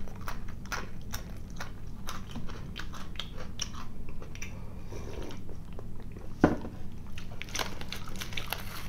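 Close-up crunching and chewing of thin, crisp salted bread sticks, a run of short crackly bites. Midway comes a sip from a glass mug of tea, then a single sharp knock, the loudest sound, before the crunching resumes.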